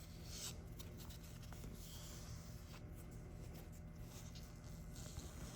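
Faint rubbing and scratching over quiet room tone, with a few soft ticks.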